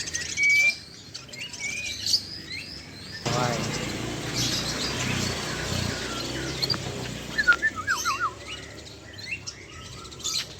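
Many caged songbirds chirping and whistling, with short clear whistles and a loud wavering trill about three-quarters of the way through. A steady rush of noise joins in about a third of the way in and fades out past the middle.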